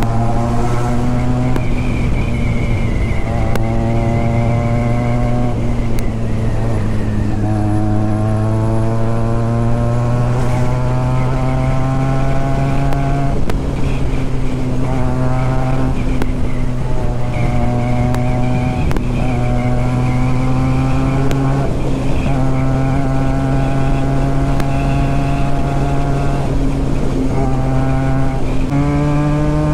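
Benelli TNT 300 parallel-twin motorcycle with a loud aftermarket exhaust, ridden hard. The engine note climbs in pitch through each gear and drops back at each upshift, again and again, over a steady rush of wind.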